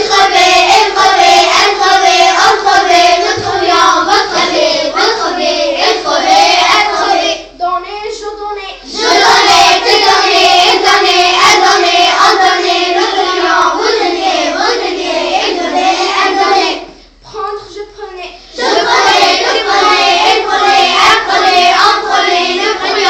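Young voices singing a sing-song chant, likely French verb conjugations in the imperfect tense. It comes in three phrases of about eight seconds each, with short breaks about 8 and 17 seconds in.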